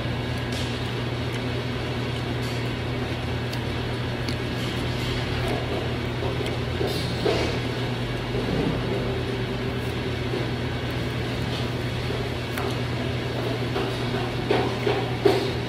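Steady low mechanical hum of indoor air conditioning, with a few short handling noises near the end as a plastic sauce bottle is squeezed over the food.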